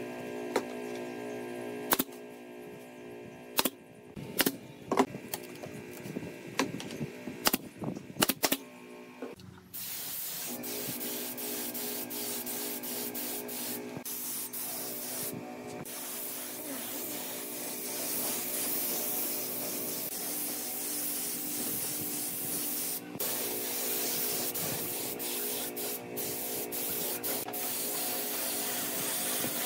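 Pneumatic nail gun firing about a dozen sharp shots at uneven intervals. From about ten seconds in, a steady hiss of compressed air blowing from an air hose takes over.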